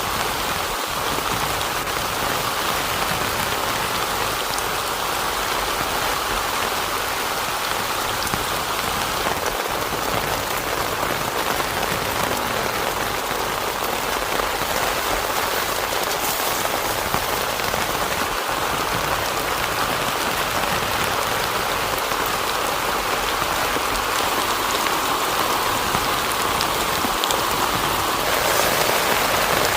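Heavy rain falling steadily, growing a little louder near the end.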